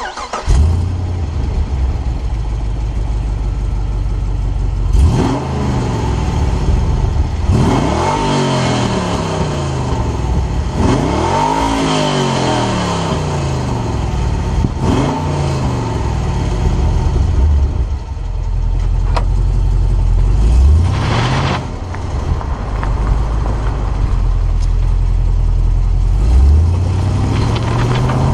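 2006 Pontiac GTO's 6.0-litre LS2 V8, exhaust with long-tube headers, no catalytic converters and its electric cutouts closed, idling and revved up and down several times. Near the end it pulls away and runs through two rising accelerations.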